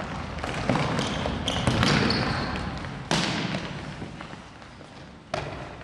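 A futsal ball being kicked and bouncing on a wooden gym floor: several sharp thuds with a hall echo, the sharpest about three seconds in, mixed with brief squeaks of shoes on the court.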